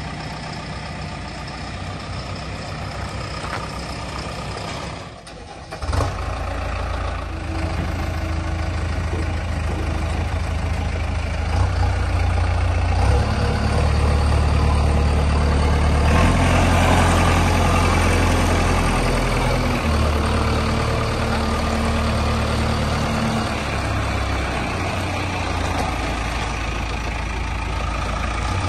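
A heavy diesel vehicle engine running. About five seconds in it briefly drops away, then comes back louder and deeper, its pitch and loudness shifting up and down as the vehicle is worked.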